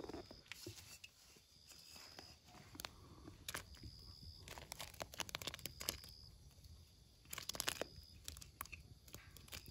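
Quiet cooking at a wood-fired clay stove: scattered clusters of sharp crackles and clicks as rice-flour dumplings are dropped by hand off a steel plate into a wok of simmering milk, the densest bursts about halfway through and near the end.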